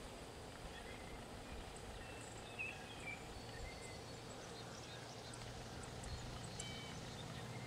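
Quiet outdoor background: a low steady rumble with scattered faint, short high chirps and ticks.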